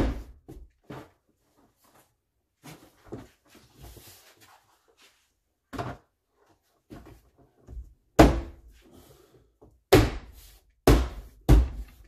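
Plastic interior trim panel on the rear hatch being knocked into place by hand, its clips snapping home: a series of sharp thumps, the four loudest close together near the end, with lighter rubbing and handling of the panel in between.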